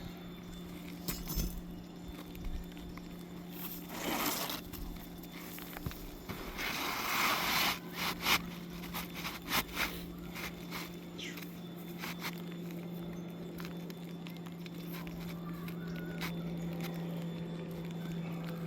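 Hand tools scraping and clicking against brittle asphalt shingles while roofing nails are pried out, with a louder scrape about four seconds in and a longer one around seven seconds, over a steady low hum.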